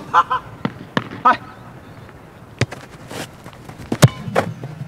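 A soccer ball is kicked, giving a sharp thud about four seconds in, the loudest sound here. A few lighter knocks come before it, and there are brief voices near the start.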